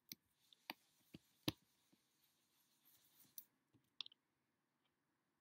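Faint taps and clicks, about five in the first two seconds and one more about four seconds in, with a soft scratchy hiss between them lasting about three seconds, as a word is written with a marker on a small whiteboard.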